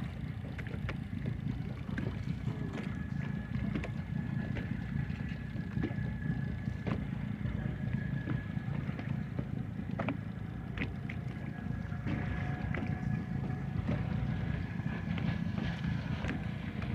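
Boat engine running with a steady low rumble, a faint thin whine above it and scattered small knocks.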